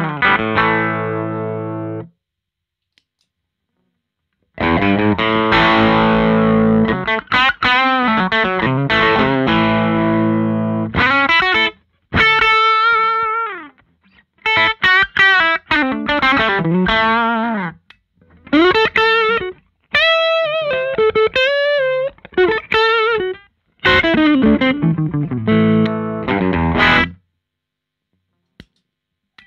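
Electric guitar (Gibson Les Paul Standard) played through a 1973 Fender Bassman Ten Silverface valve amp in a 1x12 cabinet with a Jensen C12K speaker, close-miked with an SM58. A chord rings and is cut off about two seconds in. After a short pause come strummed chords, then single-note blues lines with string bends and vibrato, which stop a couple of seconds before the end.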